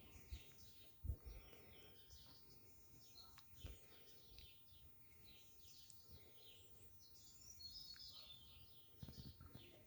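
Faint chirping of small birds, many short calls throughout, with a couple of brief low thumps, the loudest about a second in.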